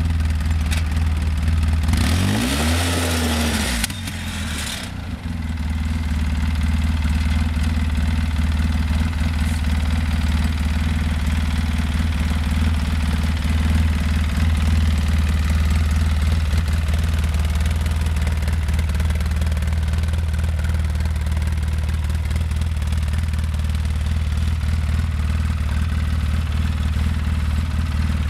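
A 2005 Polaris Sportsman 800's twin-cylinder engine: about two seconds in its pitch rises and falls once under throttle, with a brief rush of noise, then it idles steadily for the rest.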